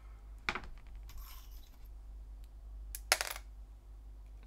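Small plastic-and-metal clicks and light scraping as a SIM card and a microSD card are prised out of a phone's SIM tray with fingernails. There are a few separate ticks, with the sharpest click about three seconds in.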